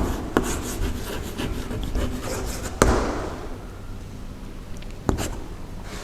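Hand writing a word on a board: scratchy rubbing strokes broken by sharp taps, the loudest about three seconds in and another near the end.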